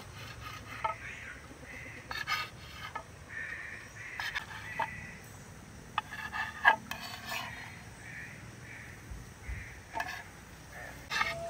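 Cooking utensil working in a pot or pan: irregular metallic clicks and knocks with runs of short rasping scrapes, as in stirring and scraping food.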